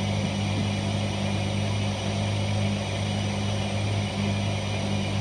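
2004 Jeep Liberty's 3.7-litre V6, warmed up, idling steadily at about 1,000 rpm with a steady low hum.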